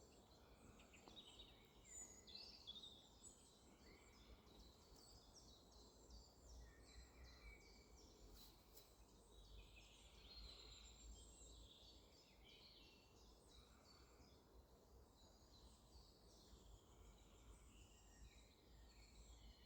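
Faint songbirds chirping and singing, many short calls and trills overlapping throughout, over a low steady rumble.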